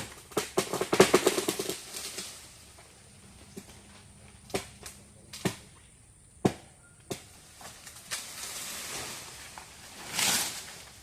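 A string of sharp knocks and cracks: a quick run of crackling in the first two seconds, then single knocks about a second apart, and a swell of rustling hiss near the end.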